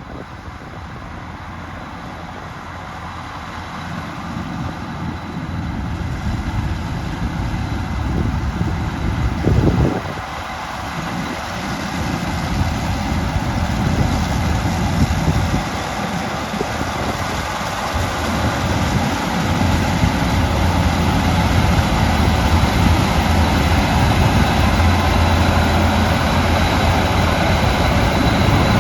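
Gleaner S97 combine harvester running steadily as it harvests wheat, its sound growing gradually louder, with a brief louder moment and a drop about ten seconds in.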